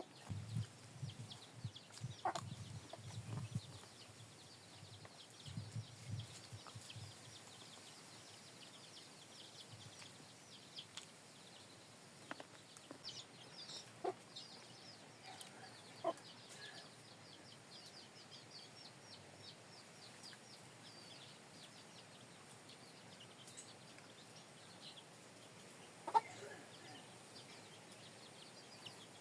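Chickens clucking faintly now and then, with a few sharper single clucks.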